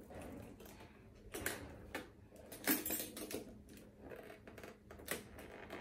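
Metal chain strap of a handbag clinking as it is handled, in several separate sharp clinks.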